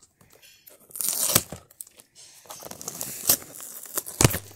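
Cry Babies doll packaging being torn open and crinkled by hand: a loud ripping burst about a second in, then scattered crinkling and a couple of sharp knocks near the end.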